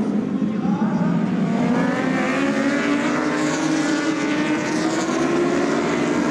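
A pack of racing motorcycles running at high revs, many engine notes layered together and slowly rising in pitch as the bikes accelerate.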